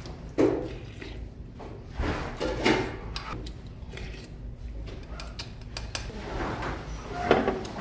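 Udon noodles and broth being slurped from a bowl, several separate slurps with the loudest about half a second in, near three seconds and near the end.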